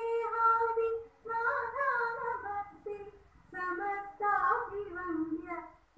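Girls singing a Malayalam prayer song into a microphone, in three drawn-out phrases with short breaks between them.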